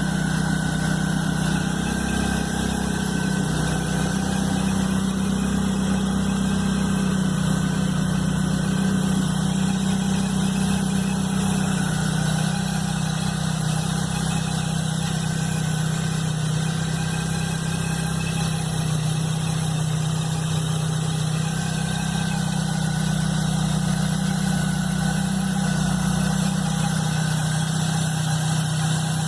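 Chevrolet S10 Blazer engine idling steadily, with a faint steady whine above the engine note. This is the strange noise that began right after the timing belt and alternator belt were replaced.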